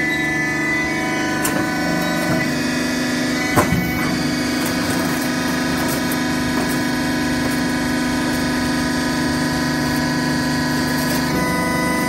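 Horizontal hydraulic baler's power unit running with a steady hum. A sharp metallic knock comes about three and a half seconds in, with a couple of lighter clicks before it.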